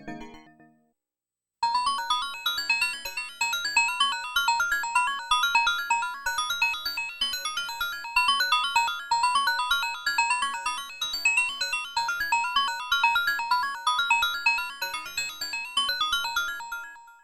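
Dave Smith Evolver hybrid analog/digital synthesizer playing a single patch of rapid, short, high-pitched repeated notes. It starts after a second or so of silence and fades out near the end, with the tail of the previous patch dying away at the very start.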